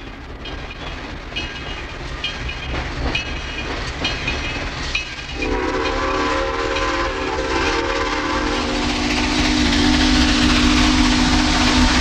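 Steam locomotive's bell ringing in short strokes, then about five seconds in its whistle sounds a long blast that shifts in pitch a few seconds later.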